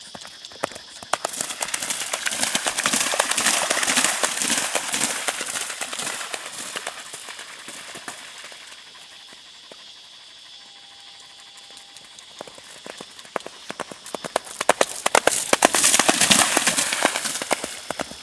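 A horse's hooves splashing and thudding through shallow river water at the sandy edge, a rapid run of hoof strikes. It is loud early on, dies down in the middle, and comes back loud for several seconds near the end.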